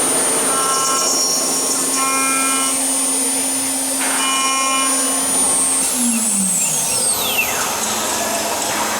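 HSD electro-spindle of a CNC aluminium machining center running at steady speed with a high whine over a rushing noise, then spinning down about two-thirds of the way in, its pitch falling. Three short higher tones are heard in the first half.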